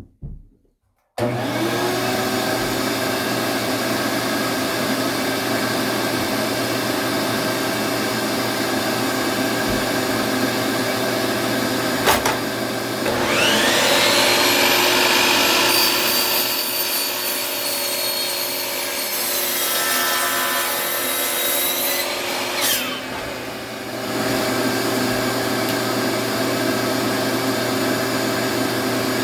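Electric power saw running, its motor dropping in pitch as it bogs down cutting through a wood board for about ten seconds in the middle, then rising back to free speed as the cut finishes.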